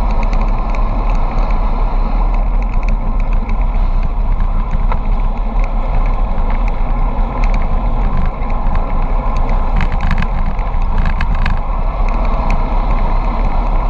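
Wind buffeting the microphone with steady road and tyre rumble, from a bicycle coasting fast downhill. A brief run of light clicks comes about ten to eleven seconds in.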